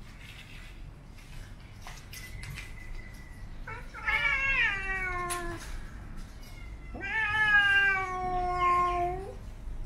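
Siamese cat yowling twice in long, drawn-out wails: the first falls in pitch, and the second, a few seconds later, is held fairly level for over two seconds. The cats are face to face, so these are the sounds of a cat warning off another.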